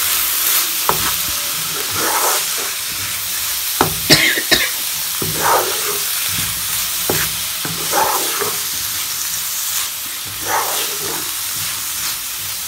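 Chicken and vegetables sizzling in a non-stick frying pan while a wooden spatula stirs and scrapes through them, with a few sharp knocks of the spatula on the pan about four seconds in.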